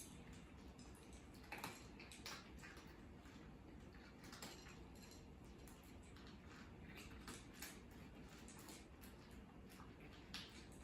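Cats eating: faint, irregular small clicks and crunches over a low steady hum.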